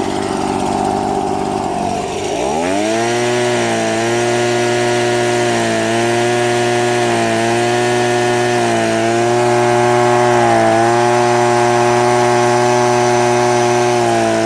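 A motor spins up from a low pitch a couple of seconds in, then runs loud and steady with slight dips in pitch about every second and a half.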